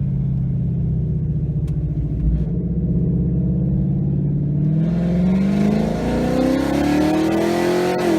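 Ford Mustang's 5.0 Coyote V8 with an open off-road X-pipe and dumps, no mufflers: the engine holds a steady note for about four seconds, then accelerates, its pitch climbing with a rising rasp until it drops sharply at the very end.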